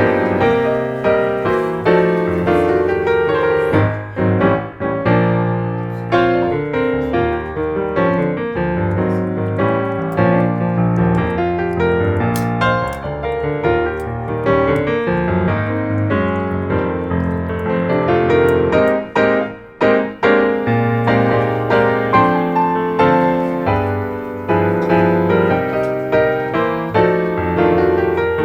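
Background piano music, a continuous run of notes with a steady pulse and a bass line.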